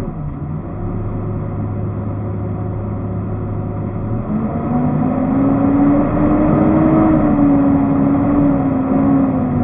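Off-road 4x4 vehicle's engine under way, with a steady low hum for the first few seconds. The engine then revs up, rising in pitch from about four seconds in and easing off after about seven seconds.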